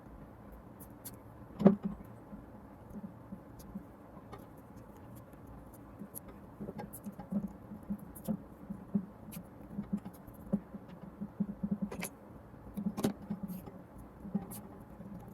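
Scattered light knocks, taps and clicks from handling and wiring, with a sharp click about a second and a half in and two more near the end.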